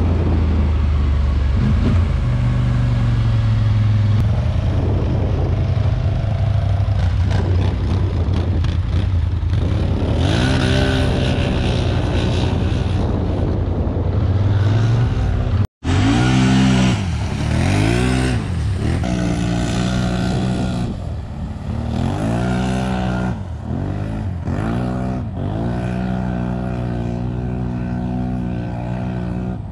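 Polaris Sportsman Highlifter ATV engine running at a steady low note, then revved up and down again and again, each rise and fall a second or two long. The sound cuts out for an instant about halfway through.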